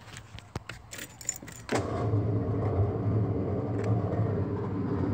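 Small clicks and a key rattle, then, a little under two seconds in, an electric motor in a Ford pickup starts up and keeps running with a steady, even drone.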